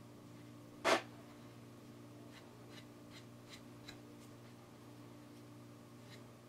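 Fingertips rubbing pigment into the kolrosed lines of a wooden spoon: one loud brief scrape about a second in, then faint short rubbing strokes about two or three a second, over a steady low hum.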